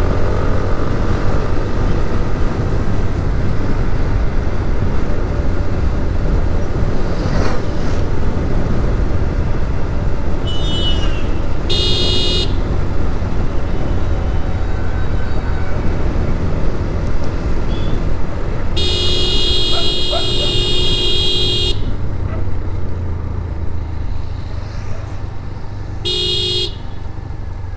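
Continuous engine and road noise of a TVS Apache RTR 160 4V motorcycle being ridden in traffic. A vehicle horn sounds several times: a couple of short beeps a little before the middle, one long honk of about three seconds just after the middle, and a short beep near the end.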